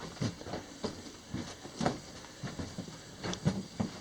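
Footsteps crunching on loose rock and gravel in a mine tunnel, an uneven run of short knocks about three a second.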